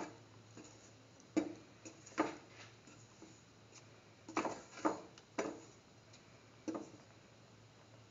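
A spatula stirring thick soy chunk curry in a pan, knocking and scraping against the pan about seven times at uneven intervals.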